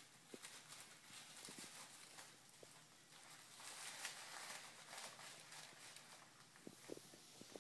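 Faint rustling and crinkling of a plastic catnip bag as a kitten clutches and kicks at it while rolling on a hardwood floor, with small irregular taps of claws and paws. A few sharper taps come near the end.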